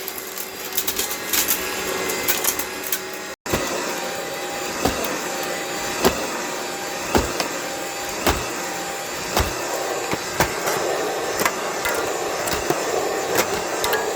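Vintage Eureka The Boss vacuum cleaner being smashed: a steady running noise with fast rattling clicks, then, after a brief cut, sharp knocks about once a second.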